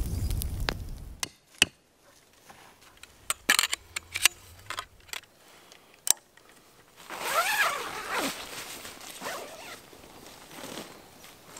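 Scattered sharp clicks and taps as a metal tent pole is handled. About seven seconds in, a zipper is pulled with a rasp whose pitch rises and falls, followed by a shorter, fainter pull as the canvas tent is unpacked.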